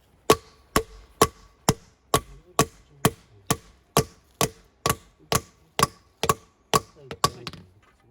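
A mallet striking granite in a steady series of about sixteen blows, roughly two a second, each with a faint ring: a gravestone's base stone being tapped down into place.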